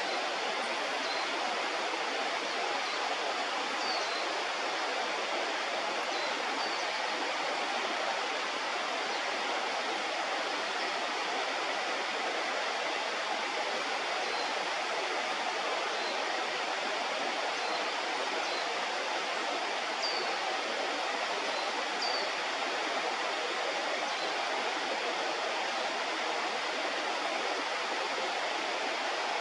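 River water rushing steadily, with a few faint short high peeps over it now and then.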